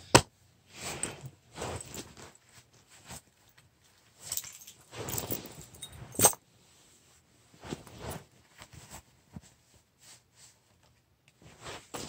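Small everyday-carry items handled and set down on a carpeted floor: spells of rustling with scattered taps. Two sharp clicks stand out, just after the start and about six seconds in, and there is a light jingle of keys.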